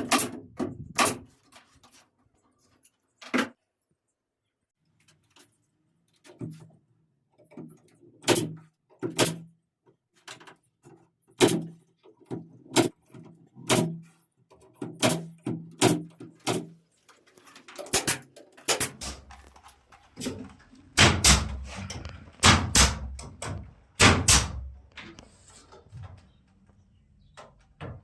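Irregular sharp knocks and thuds of woodworking, a few a second at times, with a cluster of the loudest ones over a low rumble in the second half.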